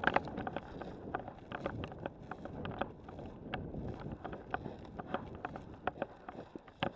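Wind rumbling on the microphone, with irregular sharp clicks and snaps scattered throughout, a few each second.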